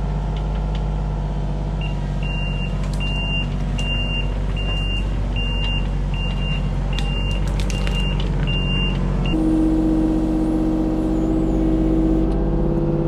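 Kubota U35-4 mini excavator's diesel engine running steadily. A high beep repeats about once every three-quarters of a second from about two seconds in to about nine seconds, with scattered clicks and knocks. A steady whine joins the engine sound for the last few seconds.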